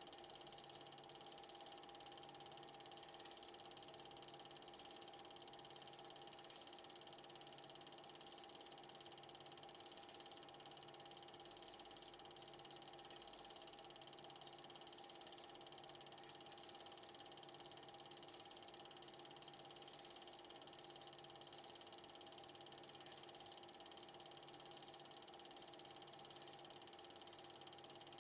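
Film projector running: a faint, steady mechanical whir with constant whining tones and a soft low pulse about once a second.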